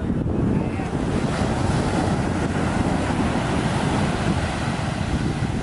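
Sea surf washing onto a sandy beach, with wind buffeting the microphone in a steady low rumble.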